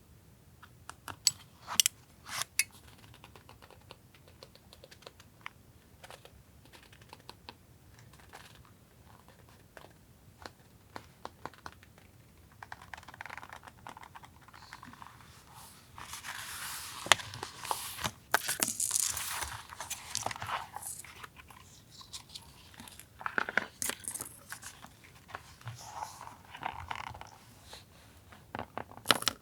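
Paper and collage materials being handled: scattered sharp taps and clicks, then stretches of paper rustling and crinkling, the longest about halfway through and another a few seconds later.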